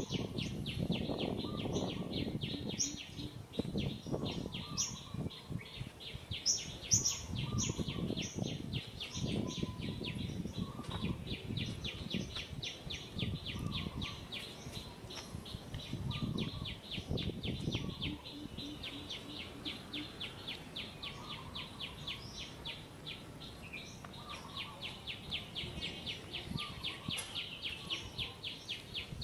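Insects chirring in a fast, even pulse, with scattered bird chirps over it and irregular low rustling that is stronger in the first two-thirds.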